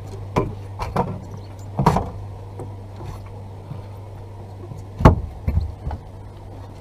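Scattered knocks and clunks of fishing rods and gear against a fiberglass boat, the loudest about five seconds in, over a steady low hum.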